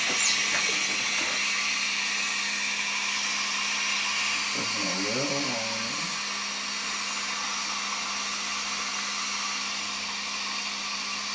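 Dental suction running chairside: a steady airy hiss over a low hum.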